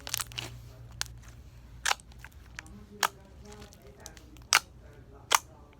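Soft slime being squeezed and stretched by hand, giving sharp pops and clicks about once a second, six in all.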